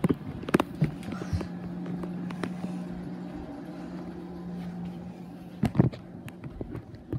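Footsteps and handling knocks as someone walks through a dark house holding a camera: scattered thumps, with a louder pair near the end, over a steady low hum through the middle seconds.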